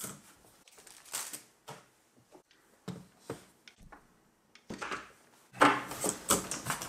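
Scattered knocks and clatter of tools being set down on a desk: a spool of solder, then a soldering station and its iron stand. The knocks come thicker and louder in the last second or so.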